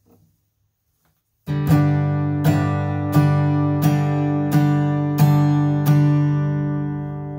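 Steel-string acoustic guitar strumming a G5 chord (a G major shape with strings 5 and 1 muted), starting about a second and a half in. Seven even strums of the same chord, about one every 0.7 s, each left to ring.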